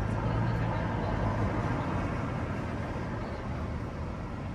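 Street traffic: a car passing on the road. It is loudest in the first second and a half, then fades.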